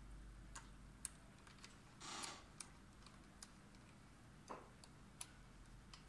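Faint, scattered clicks and ticks of a screwdriver turning a screw in a metal joystick mounting bracket on a wheelchair push handle, with a brief scrape about two seconds in.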